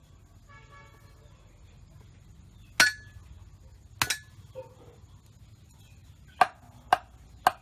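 Cleaver chopping fish on a wooden chopping block: five sharp chops, the first two more than a second apart, the last three about half a second apart.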